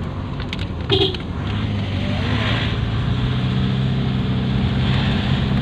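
Car engine and road noise heard from inside the moving vehicle's cabin: a steady low hum that grows a little louder and fuller from about halfway through. There is a short knock about a second in.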